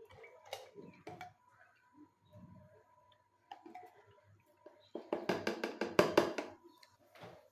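Kitchen handling sounds: scattered clicks and knocks of utensils and dishes, then a rapid rattling clatter from about five seconds in, lasting about two seconds.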